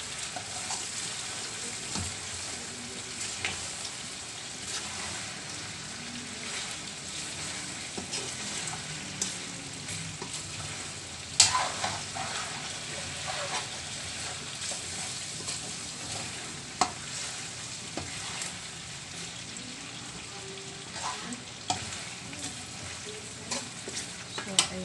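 Pork belly frying in its own rendered fat in a wide metal wok, the adobo sauce cooked down: a steady sizzle while a metal spatula stirs and scrapes the pan. The spatula clacks sharply against the metal now and then, loudest about eleven seconds in.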